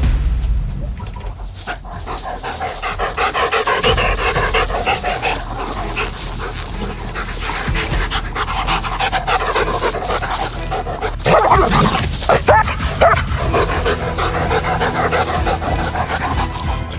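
Dogs panting hard and fast close to the microphone, a German shepherd and a Malinois-type dog during off-leash play. A few louder, sharper sounds come about two-thirds of the way through.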